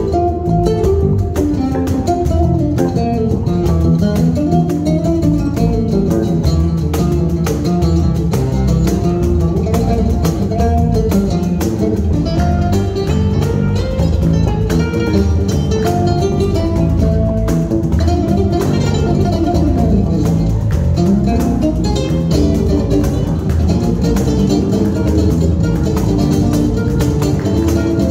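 Latin jazz trio playing live: acoustic guitar carrying the melody over electric bass, with a cajón keeping a steady hand-played beat.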